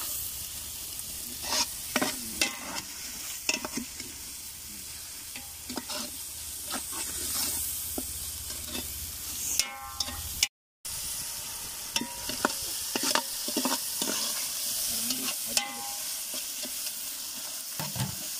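Onions, tomatoes and ginger-garlic paste frying in oil in a large aluminium pot, sizzling steadily, while a slotted metal ladle scrapes and clinks against the pot as the masala is stirred. The sound breaks off for a split second about ten seconds in.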